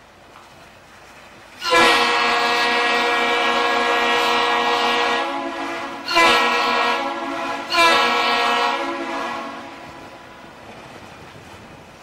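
The ship's horn on the lake freighter CSL Assiniboine sounds one long blast and then two short ones. Each is a loud, steady, deep tone rich in overtones, and the last one dies away slowly.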